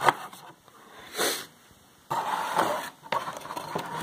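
Hands working a GoPro Hero5 loose from its plastic display mount: small plastic clicks and rustling, with a sharp click at the start and a short hiss about a second in.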